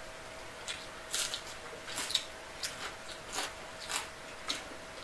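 Crispy fried pork belly crackling crunching in a string of short, sharp crunches, roughly one every half second.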